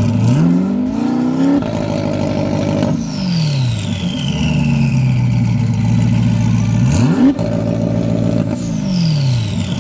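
Twin-turbocharged 427 cubic-inch LT2 V8 of a C8 Corvette accelerating, its revs rising, easing off and rising again, with a quick sharp rev about seven seconds in. Each time the revs drop, a high whistle falls away, which fits the turbos winding down.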